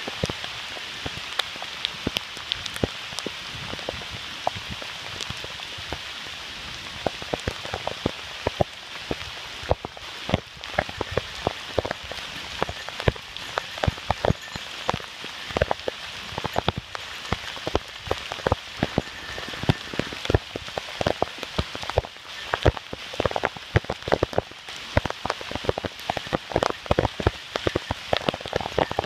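Heavy typhoon rain falling: a steady hiss with many close, sharp drop taps at irregular intervals, growing denser in the second half.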